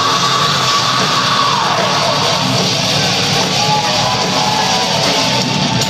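Live heavy metal band playing loud, with electric guitars, heard from within the crowd. A held high note slides down about two seconds in.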